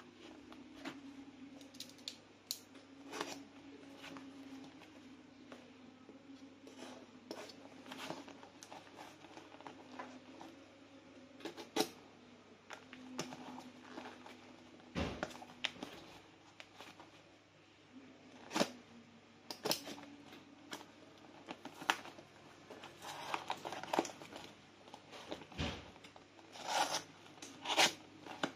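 Charger packaging being handled and opened by hand: scattered rustles, taps and tearing of the wrapping, busier near the end, over a steady low hum.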